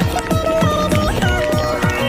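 Background music with a steady, fast beat of bass thumps under a sustained melody that bends in pitch.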